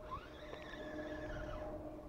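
Spinning reel being cranked to retrieve line on a feeder rod, its gears giving a whine that rises in pitch as the cranking speeds up, holds steady, then drops away near the end.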